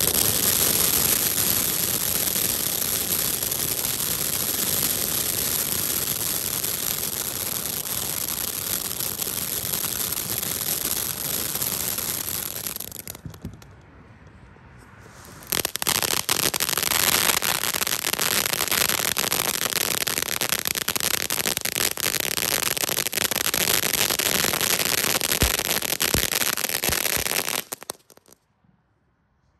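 Ground firework fountain spraying: a steady loud hiss thick with crackling. It falls away for a couple of seconds about halfway through, starts up again at full strength, and stops abruptly near the end.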